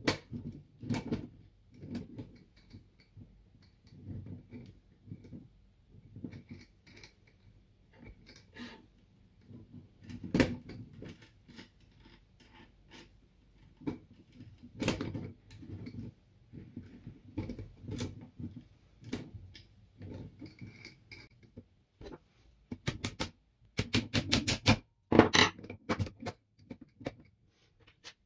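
Hands handling and assembling small hard parts: irregular knocks and clicks, with quick runs of clicks near the end.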